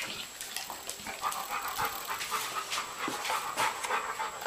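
Dog panting quickly and rhythmically, about three breaths a second.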